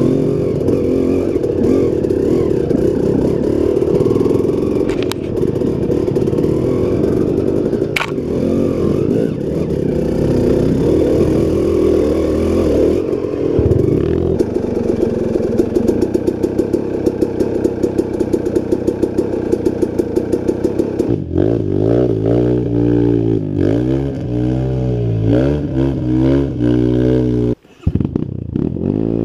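KTM EXC 250 two-stroke dirt bike engine running continuously under throttle, heard from on board, with some rattling from the bike. In the last third the revs rise and fall over and over as the throttle is worked, and the sound breaks off for a split second near the end.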